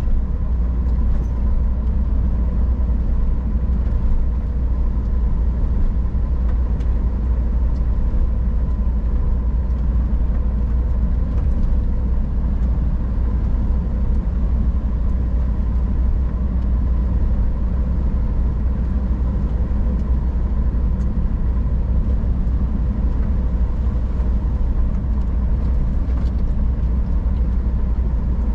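Scania R440 truck's inline-six diesel engine and drivetrain running steadily on the move, a constant low drone with road noise and no change in pace.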